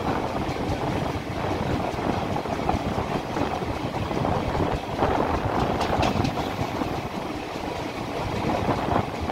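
ICF passenger coaches running along the rails through a station: a steady rumble and clatter of wheels on track, with a few sharper clicks about six seconds in.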